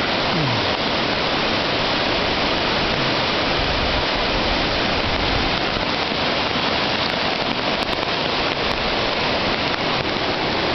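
Swollen, muddy river in flood after torrential rain, its fast water rushing in a steady, unbroken wash of noise.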